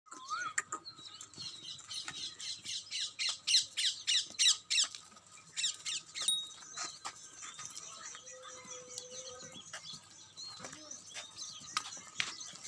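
Birds calling: a quick run of sharp, high, repeated squawking chirps in the first half, then scattered fainter calls.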